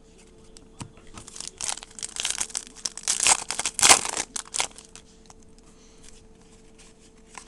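Trading-card pack wrapper being torn open and crinkled: a few seconds of crackly rustling, starting about a second in and stopping about five seconds in.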